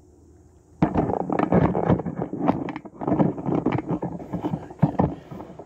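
Handling noise: dense, irregular rustling and knocking that starts about a second in and dies away near the end.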